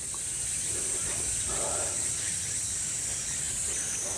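Steady, high-pitched chorus of summer cicadas droning without a break, with a faint tap right at the end.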